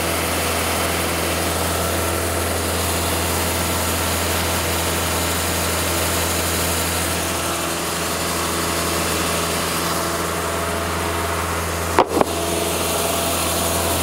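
Hydraulic portable sawmill's engine running steadily at idle, a constant low hum with no cutting. A brief sharp click about twelve seconds in.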